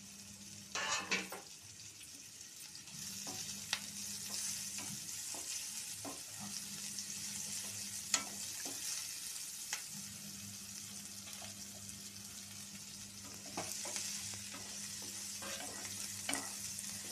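Chopped onions and green chillies sizzling in hot oil in a non-stick frying pan, stirred with a wooden spatula that clicks and scrapes against the pan now and then. The sizzle grows louder about three seconds in.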